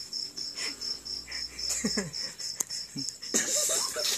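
Stifled, breathy laughter and snickering, ending in a louder breathy burst of laughter near the end, over a cricket chirping steadily in the background.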